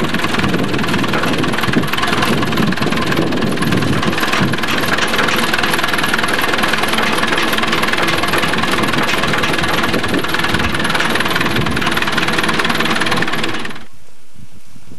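Farm tractor engine running steadily while the tractor drives along, heard from on board. The engine sound cuts off abruptly near the end.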